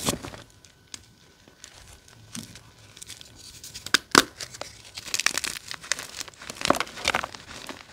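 Dyed gym chalk crushed by hand: soft crumbling of loose chalk powder, then two sharp cracks about four seconds in as a block is squeezed, followed by a run of dense crunching as the block breaks up into crumbly pieces.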